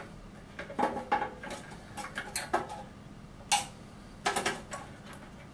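Irregular small metallic clicks and taps of a screwdriver working against screws and the metal chassis inside a resin 3D printer as the motherboard screws are loosened.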